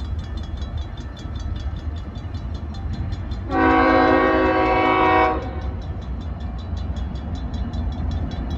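Locomotive air horn sounds one long blast starting about three and a half seconds in and lasting nearly two seconds, part of the long-long-short-long grade crossing signal. Under it a crossing bell dings rapidly and steadily, over the low rumble of the approaching freight train.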